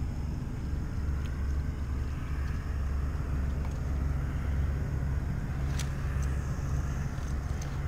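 Steady low rumble, with a few faint light clicks near the end.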